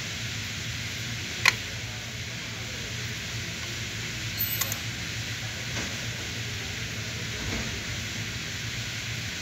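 Steady hissing noise with a low hum underneath. A sharp click sounds about a second and a half in, and a few light clicks come a little before the middle.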